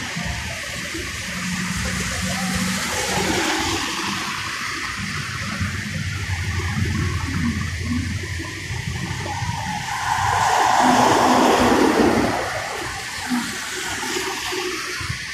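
Traffic on a flooded, rain-soaked street: a steady hiss of wet tyres and water, with low engine rumble. About ten seconds in, a car passes close, its tyres swishing loudly through standing water before fading away.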